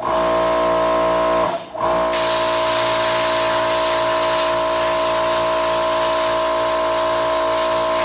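Handheld plasma cutter cutting a hole through a steel pan: a loud, steady hiss of air and arc with a steady whine running through it. It breaks off briefly about a second and a half in, then catches again.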